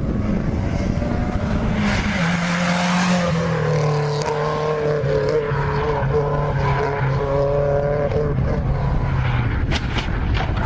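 Rally car engine running hard at high revs on a gravel stage, its note stepping down about two seconds in, with tyres and gravel hissing. Near the end come a few sharp knocks as the car crashes off the road into a log pile.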